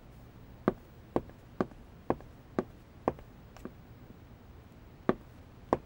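Footsteps on a hard floor, about two steps a second, breaking off for a moment and then two more steps near the end.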